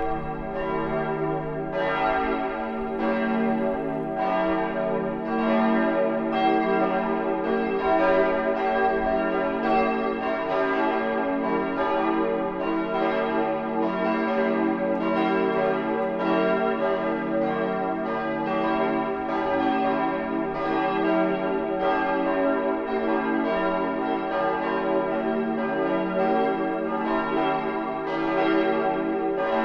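Full peal of church bells: all the tower's bells swinging and ringing together in a steady run of overlapping strikes, ringing in the Sunday service.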